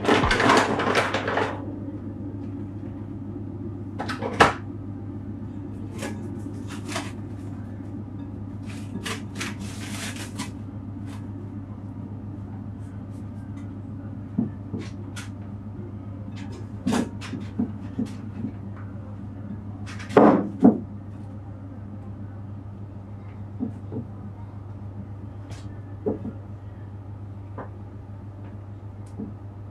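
Kitchen handling sounds as bread dough is taken from a glass bowl and flour is scattered on a metal baking tray: scattered knocks and clatters, the loudest at the start and about twenty seconds in, over a steady low hum.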